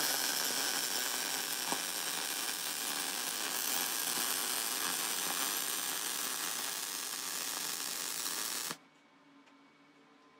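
MIG welding arc running a continuous bead along a seam of a thin steel box: a steady sizzling hiss that cuts off suddenly about nine seconds in as the arc stops.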